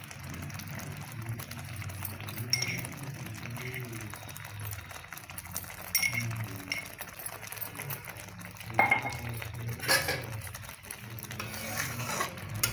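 Metal spatula stirring thick spinach gravy in a metal kadhai, scraping the pan, with a few sharper clinks of the spatula against the pan's side scattered through.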